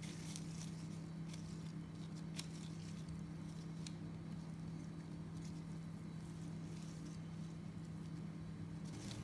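Disposable plastic gloves crinkling as hands roll cookie dough into balls, with a few light ticks as balls are set down on a metal baking tray. A steady low hum runs underneath.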